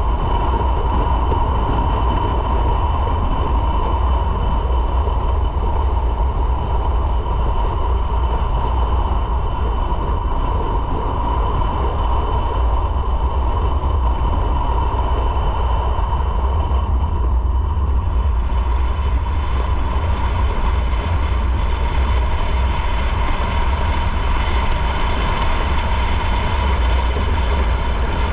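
Motorcycle riding at a steady speed: a heavy wind rumble on the microphone with a steady engine drone underneath.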